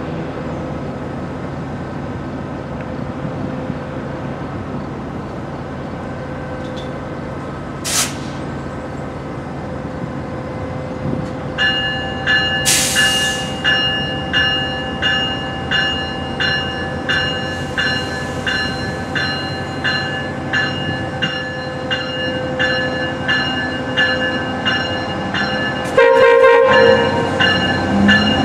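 GO Transit MPI MP54AC diesel locomotive drawing slowly into the station with its engine running steadily. About a third of the way in its bell starts ringing, roughly one and a half strokes a second, with a brief hiss of air soon after. Near the end the horn sounds, the loudest thing in the clip.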